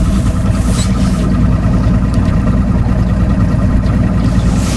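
A boat motor running steadily as the boat is maneuvered into position to set anchor.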